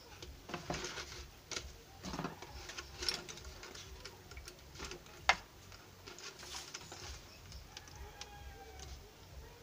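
Clear plastic bottle pieces being handled, giving irregular crackles and clicks, with one sharp click about five seconds in.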